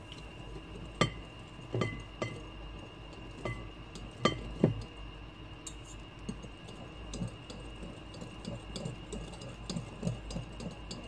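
Stirring utensil clinking against a glass mixing bowl while egg yolks and sugar are tempered with warm milk. About six sharp clinks with a brief ring come in the first five seconds, then lighter, quicker ticking as the stirring goes on.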